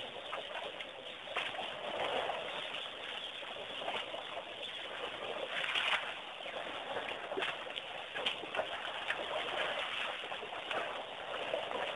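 Waterhole ambience from a wildlife webcam's microphone: birds calling over a steady wash of background noise, with a few short splashes from the elephant calves wallowing in the mud.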